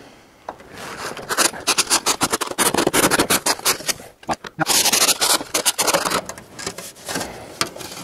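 Chimney brush on a rod scraping up and down inside a section of stovepipe that is dirty inside, a rapid rasping scrape with a brief pause about four seconds in. It is the sound of creosote buildup being scoured out of the pipe.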